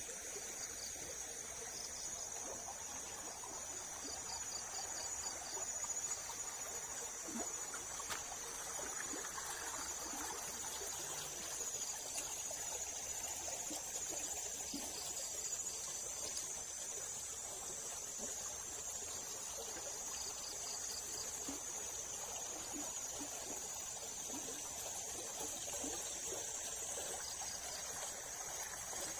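River water flowing and trickling over a small weir, with a steady high chorus of insects over it; a short pulsing trill comes in a few times.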